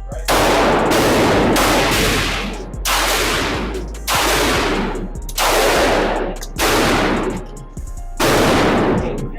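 Pistol shots fired at a steady pace, about seven in all, roughly one every second or so, each ringing on briefly after the report.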